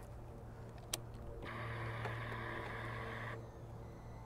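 A faint click about a second in, then the KTM 1290 Super Duke R's electric fuel pump whirring steadily for about two seconds as the ignition is switched on, priming before the engine is started.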